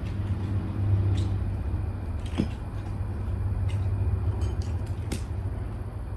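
Steady low vehicle rumble, with a few light clicks about a second in, midway and near the end.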